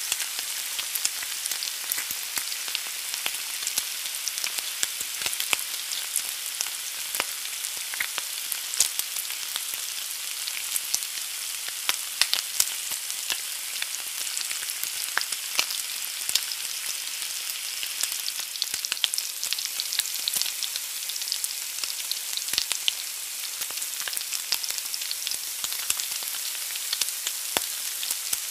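An egg frying in a hot pan: a steady high sizzle with frequent small pops and crackles of spitting fat.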